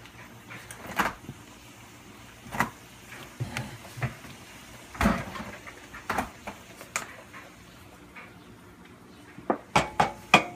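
Stainless steel pot and lid being handled: scattered sharp clinks and knocks every second or so, with a quick run of several knocks near the end.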